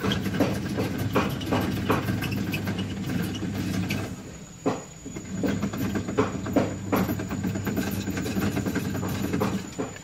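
Wok heating over the fire: a steady low rumble with irregular crackling pops throughout, as oil is poured in and begins to bubble at its edge.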